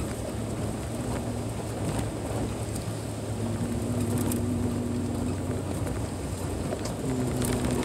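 A car driving on an unpaved dirt road: steady engine and tyre rumble, with a faint hum that rises and fades a few times.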